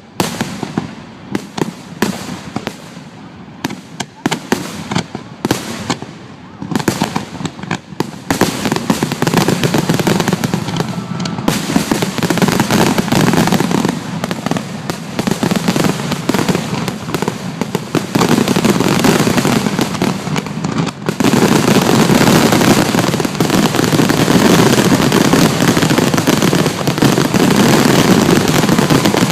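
Fireworks exploding: separate sharp bangs and crackles at first, then from about eight seconds in a dense, continuous barrage of booms and crackling, growing heavier again a little after twenty seconds in.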